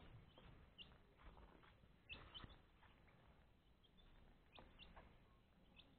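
Faint, very short high chirps from small birds, a budgerigar and a young chick, scattered about half a dozen times over near silence, with a couple of soft taps about two seconds in.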